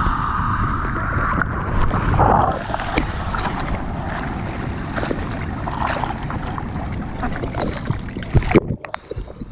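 Seawater sloshing and splashing around a GoPro held at the water's surface, with wind buffeting the microphone. There are scattered small splashes and one loud splash near the end, after which the sound drops and turns dull.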